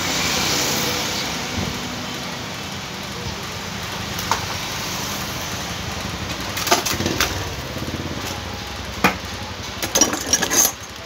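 Steady mechanical running noise, with a few sharp clicks and knocks about halfway through and a cluster of them near the end.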